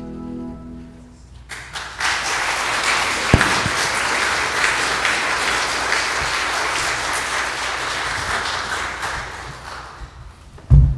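Congregation applauding in a church for about eight seconds, just after the last held notes of the bagpipes and singers fade out. A loud, dull thump comes near the end.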